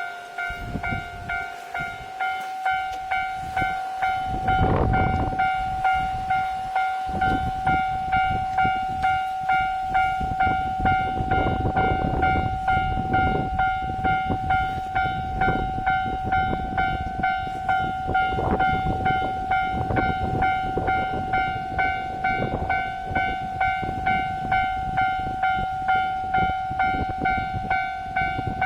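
Japanese level crossing alarm ringing its repeating electronic clang, about one and a half strikes a second, while a KiHa 261 series diesel limited express passes through the crossing from about four seconds in, its rumble and wheel clatter on the rails running under the bell.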